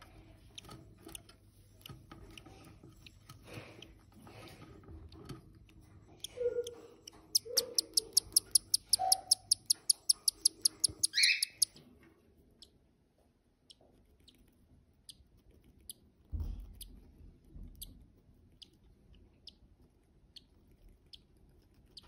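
Newly hatched cockatiel chick begging: a fast, regular run of high ticking peeps for about four seconds in the middle, ending in a short rising squeak, with a few lower short squeaks just before. Later come faint single peeps about twice a second and one dull knock.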